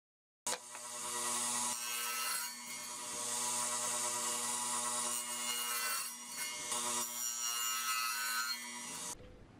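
Craftsman 10-inch radial arm saw running and cutting through a scrap-wood board. A steady motor hum sits under a loud, high cutting noise that rises and falls as the blade is pulled through the wood. It starts suddenly about half a second in and cuts off just before the end, heard through the saw table the camera rests on.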